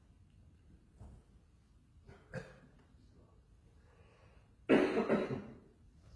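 A person coughs once, a short harsh clearing of the throat lasting under a second, near the end. A faint knock and a small click come earlier in the quiet.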